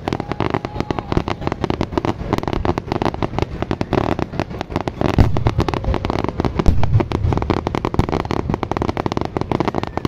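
Fireworks going off: a dense, rapid run of pops and crackles, with a few heavier booms in the middle.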